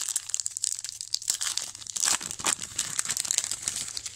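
Foil wrapper of a 2020 Topps Big League baseball card pack being torn open and crinkled by hand: a dense, continuous crackling and rustling.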